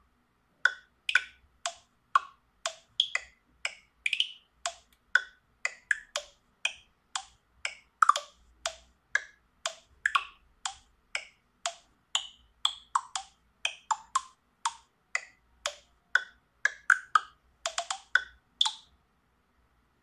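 Ringtone playing from a Sharp Aquos wish2 (SH-51C) smartphone's speaker: a tune of short, quickly fading percussive notes at changing pitches, about two a second. It ends with a quick run of notes shortly before the end.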